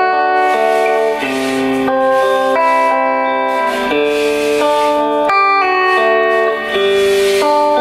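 Black Stratocaster-style electric guitar with HSS pickups (two single coils and a humbucker), played through an amp: a melodic passage of ringing notes and chords, changing about every half second to a second, played as a sound demo of the guitar.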